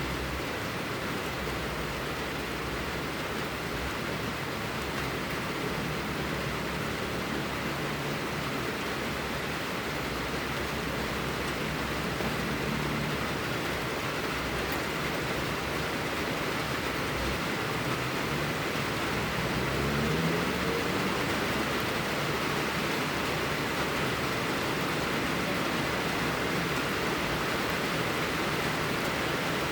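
Steady rushing blizzard wind, an even noise with no breaks, with a faint rising howl about two-thirds of the way through.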